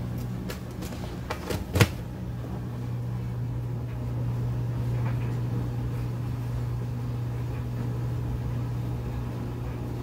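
Brastemp 14 kg top-load washing machine running with a steady motor hum as its basket turns slowly with a load of wet jeans, at the slow start of the spin cycle. A few clicks and one sharp knock in the first two seconds.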